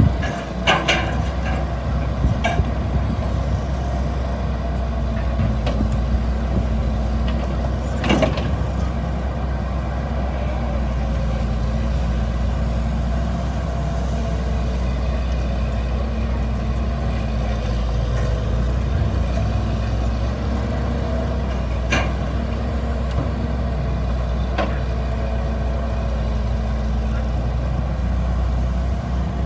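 Excavator's diesel engine running steadily at work, with a few sharp knocks and clanks scattered through.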